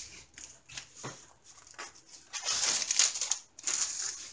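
Clear plastic cover film on a rolled diamond-painting canvas crinkling and rustling as hands press and smooth the canvas flat, in irregular bursts that grow denser and louder about halfway through.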